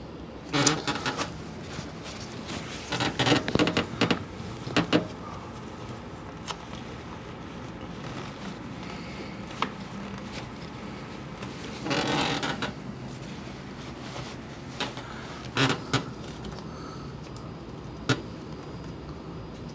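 Gloved hands working the plastic fuel-injector wiring connectors and a shop towel: a handful of short bursts of clicking and rubbing, with a longer rustle about twelve seconds in, over a steady low hum.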